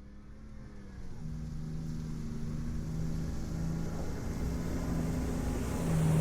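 Armoured personnel carrier engine running and growing steadily louder, with its engine note changing about a second in.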